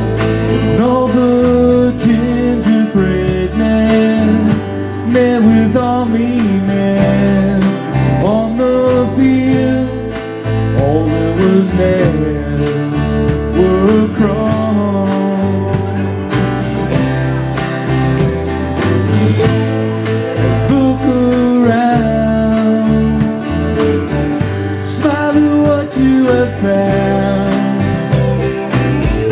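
Live band playing a song: a man singing over a strummed acoustic guitar, an electric guitar and a drum kit.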